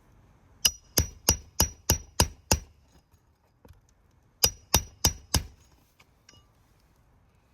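Hammer driving roofing nails into a replacement asphalt shingle: seven quick blows at about three a second, then after a pause of about two seconds four more, each with a short metallic ring.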